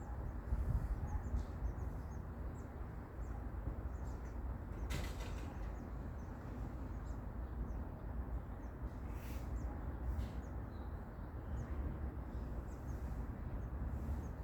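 Small birds giving many short, high chirps over a steady low background rumble, with a few brief hissy rasps about a third of the way in and again past the middle.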